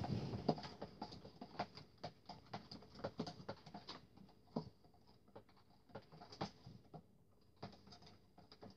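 Metal spoon stirring sticky glue-and-detergent slime in a clear plastic tub: a faint run of quick, irregular small clicks and taps, with a short lull about seven seconds in.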